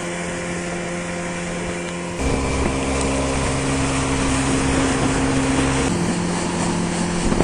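Boat's outboard motor running steadily; its pitch shifts abruptly twice, a couple of seconds in and again near the end.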